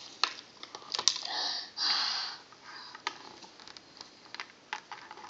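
Irregular light clicks and taps, with two short scraping sounds about one and two seconds in: a small plastic spreader stick scooping cheese dip from a plastic snack cup and spreading it on a cracker.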